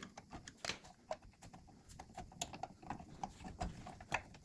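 Irregular light clicks and taps of metal brake parts being handled and worked into place while fitting a front brake assembly, with a sharper knock near the end.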